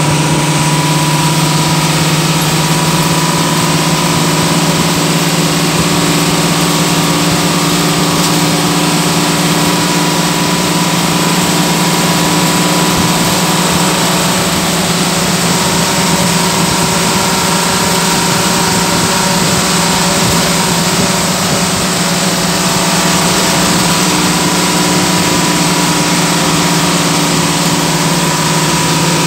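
Bus engine running steadily at cruising speed, heard from inside the driver's cab together with road and wind noise: a constant drone with a thin whine over it that fades for a while midway.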